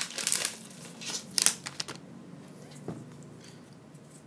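Small plastic packet crinkling and rustling as it is opened and handled, loudest about a second and a half in, then fading to faint handling noises as the cord is drawn out.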